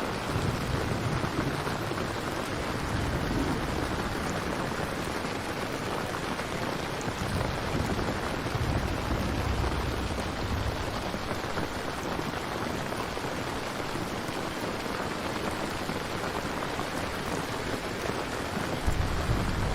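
Steady heavy rain, with low rumbles of thunder swelling at the start, again about halfway through and near the end.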